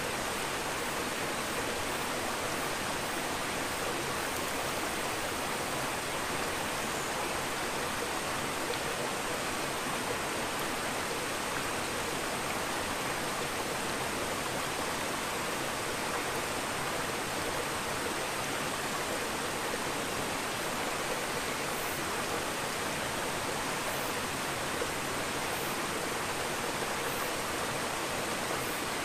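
Steady, unbroken rushing of water circulating in a running aquarium, with a faint high steady whine above it.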